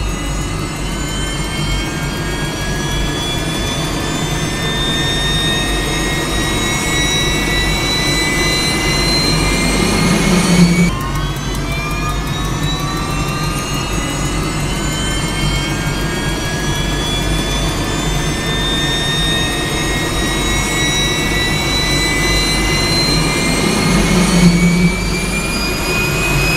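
Jet engine spooling up: a whine of several tones climbing slowly in pitch over a low rumble, growing louder. About eleven seconds in it drops back abruptly and starts climbing again.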